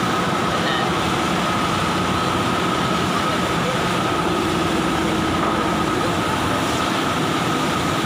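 Steady factory machinery noise: an even mechanical rumble and hiss with a constant high whine, unbroken and without any impact.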